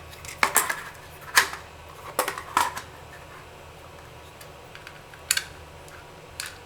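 Laptop stand being handled and adjusted by hand: a string of sharp clicks and knocks from its parts, several in the first three seconds, then two more spaced out near the end.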